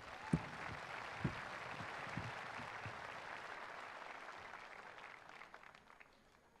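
Audience applauding, dying away after about five seconds. In the first second or so there are two knocks as the handheld microphone is set into its stand.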